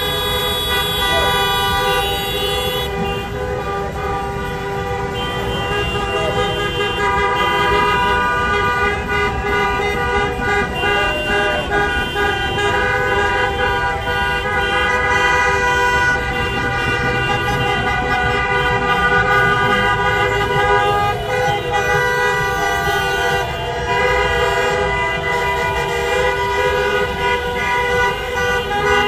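Many car horns honking at once from a long line of cars, held and overlapping into a steady din: celebratory honking after a football victory.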